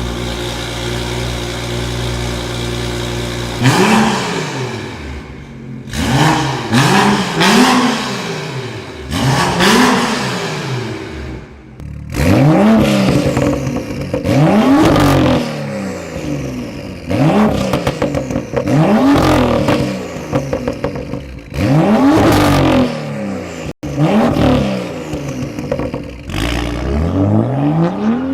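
BMW M2 turbocharged straight-six exhaust idling, then free-revved in about a dozen short throttle blips, each rising and falling in pitch, from about four seconds in.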